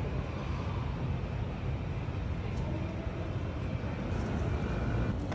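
Steady low rumble of outdoor city street ambience, with a few faint light ticks near the end.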